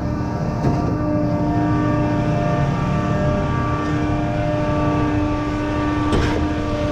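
Concrete pump truck's diesel engine running steadily under load while pumping concrete. There is a sharp knock less than a second in and a short clatter near the end.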